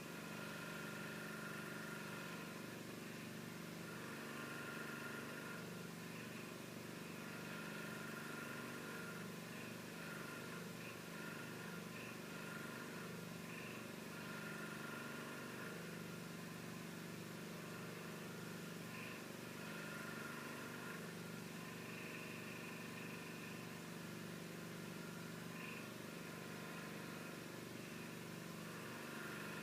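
Faint steady background hum, with higher faint tones fading in and out every few seconds.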